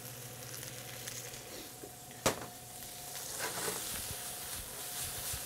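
Vegetables sizzling in hot oil in a frying pan on a gas range, the sizzle growing a little louder near the end. One sharp knock, about two seconds in, stands out above it.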